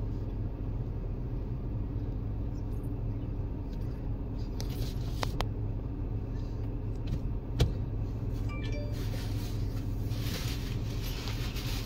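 Steady low rumble of a car heard from inside the cabin, with a couple of faint clicks about halfway through.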